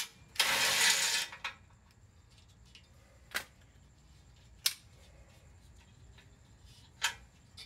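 Small Milwaukee cordless impact gun runs in one short burst of about a second, spinning out a bumper-mount bolt. Then three sharp metal clicks, a second or two apart, as the loosened bolts are handled.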